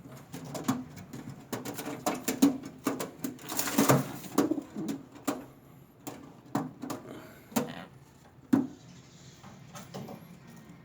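Domestic pigeons cooing in repeated short low bursts, mixed with scattered sharp clicks and a brief rustling flurry about four seconds in.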